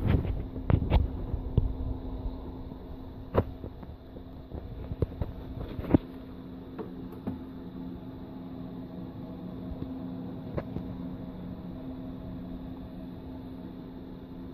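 Steady low hum from the running desktop computer's fans, with several sharp knocks of the case being handled: a cluster at the start, then single knocks a few seconds in and about six seconds in.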